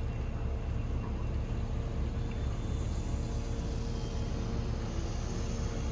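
Steady low outdoor rumble of harbour ambience, with a faint steady hum over it.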